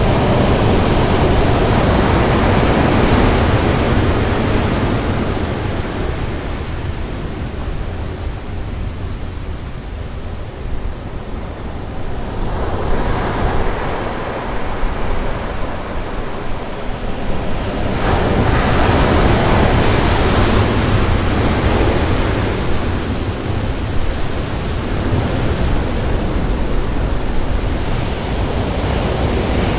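North Sea waves breaking and washing up the beach, a steady wash of noise that swells and eases as the waves come in.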